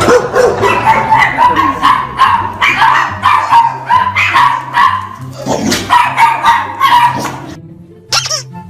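A dog barking over and over, about three barks a second, over background music with a steady beat; the barking stops near the end and a brief high squeak follows.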